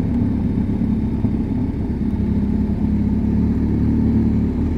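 BMW R1250 GS Adventure's boxer-twin engine running steadily at low road speed as the motorcycle is ridden through mountain-pass hairpins.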